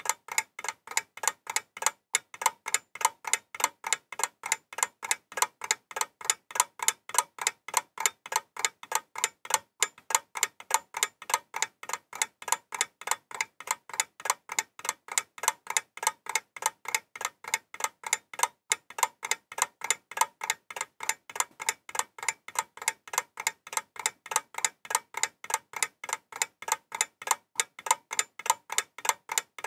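Steady, even ticking, several sharp ticks a second at an unchanging pace.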